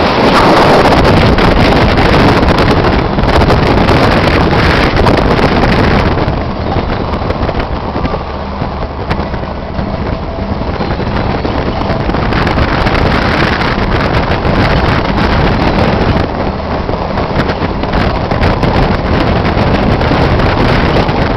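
A vehicle driving along a rough dirt road, with heavy wind buffeting the microphone. The rumble and wind ease off for a few seconds about a third of the way in, then build again.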